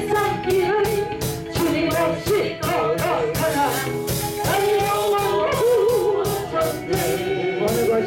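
Small mixed choir of men and women singing a Korean gospel hymn in unison into handheld microphones, over amplified instrumental accompaniment with a steady beat.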